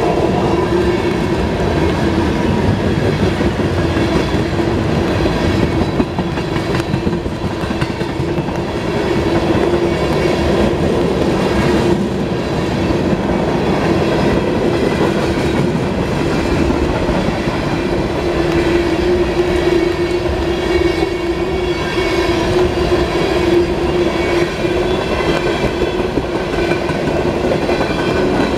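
Freight train cars, mostly tank cars, rolling past at a grade crossing: a continuous loud rumble with the clickety-clack of steel wheels over the rail joints, over a steady hum.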